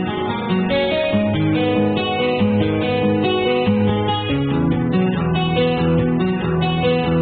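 Background music of plucked and strummed guitar: a steady run of notes changing about twice a second, with no crash or impact sounds.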